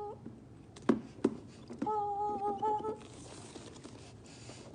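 A person humming a steady held note, with two sharp clicks about a second in as the iPad box is handled, then a faint rustling hiss as the box is worked open.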